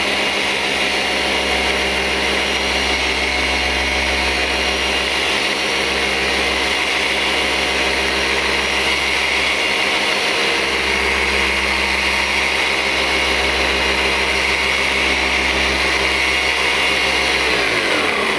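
Flex 3401 VRG dual-action polisher running steadily with an orange pad against car paint, polishing out scratches. It winds down near the end as the trigger is released.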